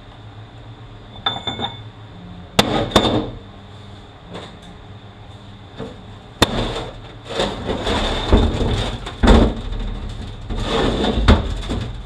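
Metal tools and steel transmission parts clinking and knocking against each other and the bench: a few separate sharp, ringing clanks, then from about six seconds in a busier run of knocks and rattles.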